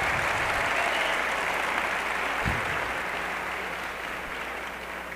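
Audience applauding, gradually dying away.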